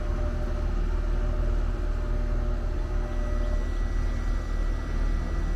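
Steady low droning hum of running machinery, with a faint high steady tone joining about halfway through.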